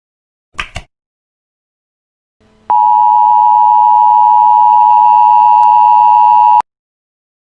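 Emergency Alert System attention tone: a loud, steady alert tone near 1 kHz that holds for about four seconds and cuts off suddenly. It is preceded, under a second in, by two brief crackles.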